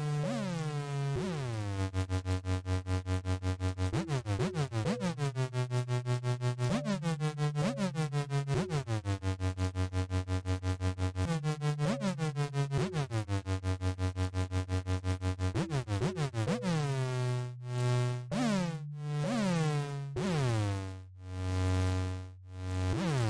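Sinus Plus 2.0 virtual organ plugin playing sustained chords that change every second or two, with a fast, even tremolo pulsing through the notes. Near the end the pulsing gives way to slower, deeper swells.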